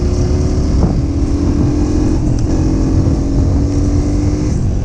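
Honda CRF150F dirt bike's single-cylinder four-stroke engine running while under way, its note climbing gently and shifting in pitch a few times.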